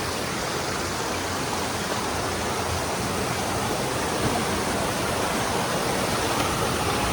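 Steady rush of flowing water from a nearby rocky forest stream, growing slightly louder toward the end.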